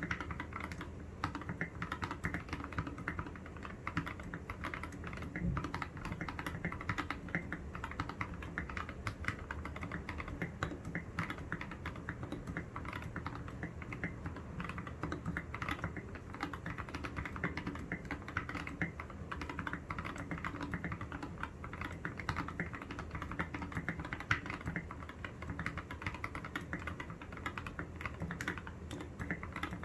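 Continuous fast typing on a foam-modded Keychron K6 mechanical keyboard with lubed, filmed Gateron Yellow Milky Top linear switches and Maxkey SA-profile keycaps: a steady stream of many keystrokes a second without pauses.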